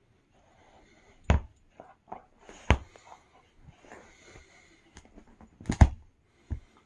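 A dog nosing and digging at a plush dinosaur squeaker toy: soft fabric rustling broken by four sharp thumps, the loudest a doubled knock near the end.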